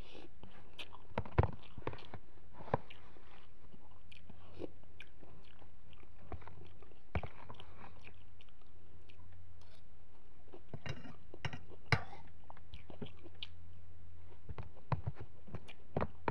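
A person chewing a mouthful of rice and vegetables close to the microphone, with scattered short clicks and small knocks.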